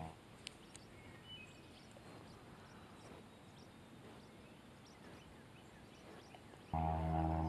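Faint outdoor quiet with a few small clicks and one short high chirp, then near the end the steady drone of a propeller airplane overhead cuts in abruptly and is the loudest sound.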